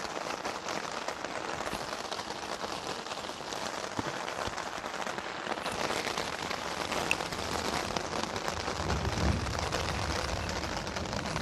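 Heavy rain falling steadily, hitting an umbrella overhead and the ground around it. A low rumble builds in the last few seconds.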